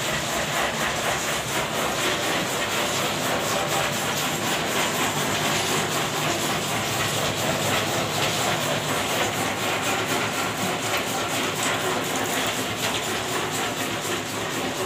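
Candlenut-cracking machine running, with a steady, dense clatter of nuts and shells rattling through it.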